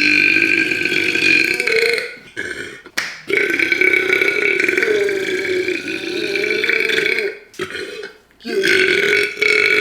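A man's loud, drawn-out burps: three long belches with short gaps between them, the middle one lasting about four seconds.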